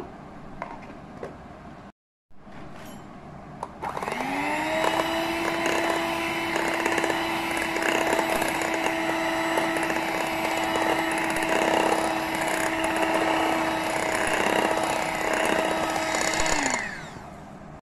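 Electric hand mixer beating egg-and-sugar cake batter in a glass bowl: the motor spins up with a rising whine about four seconds in, runs at a steady speed with scattered clicks, then winds down near the end.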